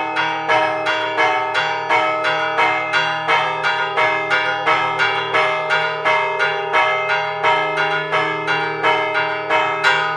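Church bells ringing a fast, even peal of about three strikes a second, their tones ringing on between strikes.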